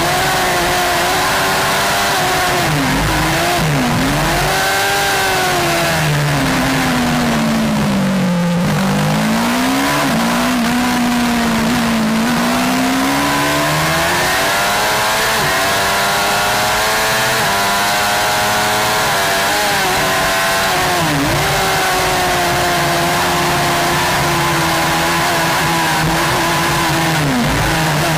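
On-board sound of a Suzuki GSX-R600 racing motorcycle's inline-four engine at high revs, with wind rush. The engine note falls away under braking to a low point about eight seconds in, then climbs steadily as it accelerates, with several brief sharp drops in pitch.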